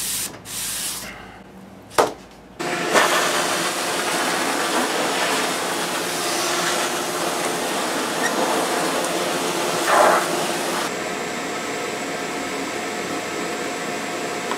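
Shop vacuum or dust extractor running steadily, switching on abruptly about two and a half seconds in, just after a sharp click.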